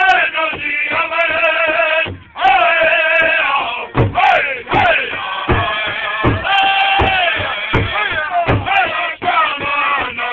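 Powwow drum group: men singing a high-pitched song together in falling phrases while beating a large powwow drum. The drumbeat comes in strongly about four seconds in, at about two beats a second.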